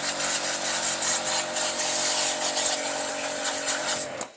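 A machine motor running steadily with a humming tone under a strong hiss, then switching off abruptly near the end.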